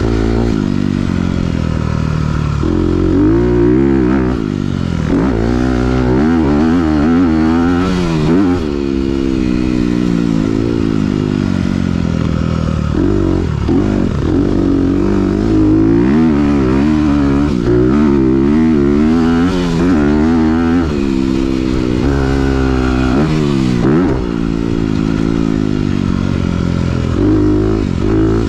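2021 Honda CRF250R's single-cylinder four-stroke engine through a Yoshimura RS-9T titanium exhaust, heard from the rider's helmet while racing a motocross track. The revs rise and drop back over and over as he accelerates, shifts and rolls off for corners.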